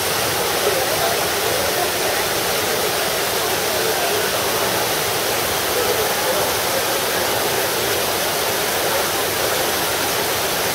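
Trevi Fountain water cascading over its carved rocks into the basin: a steady, loud rushing splash, with indistinct voices underneath.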